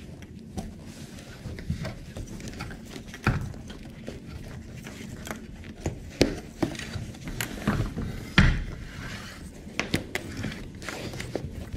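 Irregular rustling, scraping and knocking of a car seat cover and its stiff plastic retainer piece being tugged and wrestled under the seat cushion of a Ford Interceptor driver seat. The sharpest knocks come about three, six and eight seconds in, over a faint steady hum.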